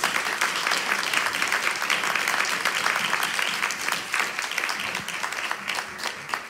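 Applause: a room of people clapping steadily, dying away near the end.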